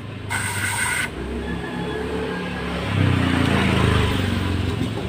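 A motor vehicle engine running close by, growing louder about three seconds in and easing off toward the end. Near the start there is a brief hiss with a steady tone in it, lasting under a second.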